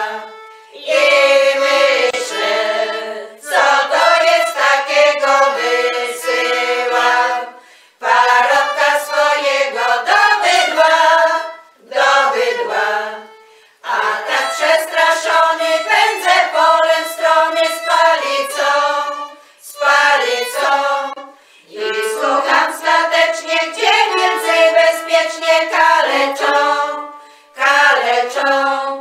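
A women's folk vocal ensemble singing a Polish Christmas carol (kolęda) together, in phrases of a few seconds separated by short pauses for breath.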